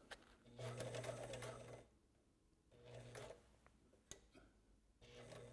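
Sewing machine stitching through fabric in three short bursts, creeping up to a corner of the seam, with a single click between the second and third bursts.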